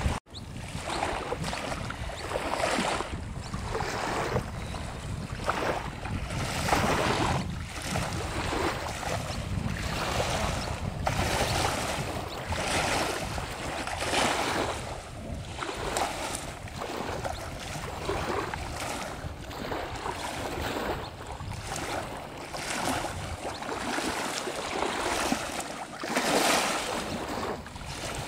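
Small waves lapping and washing against a grassy lake bank, one wash every second or so, with wind rumbling on the microphone.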